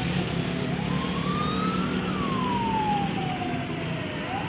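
Wailing siren, its single tone rising slowly and then falling in a cycle of about four seconds, over a steady rumble of engine and road noise.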